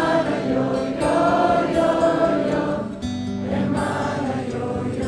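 Live concert music with sustained wordless, choir-like singing on long held notes.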